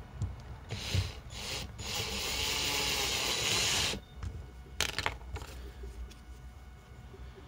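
Cordless drill boring a hole through a plastic cover plate: a steady cutting noise that builds over the first couple of seconds and stops suddenly about four seconds in. A few sharp knocks follow.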